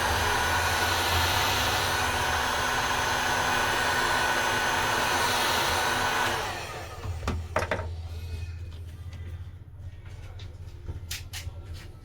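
A hot-air blower runs steadily with a faint high whine, heating the phone's back glass to soften its adhesive, and switches off about six and a half seconds in. A few light clicks and taps follow.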